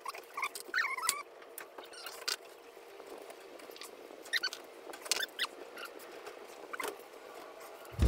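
A kitten giving short high-pitched mews, a few in the first second and again around four to five seconds in, with light clicks and rattles of wire-mesh panels being handled.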